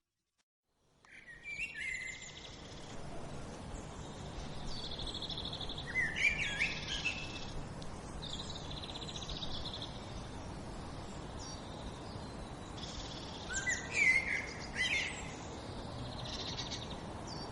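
Thrush (mirla) singing: repeated phrases of rising whistled notes and buzzy trills, starting about a second in, over a steady background hiss.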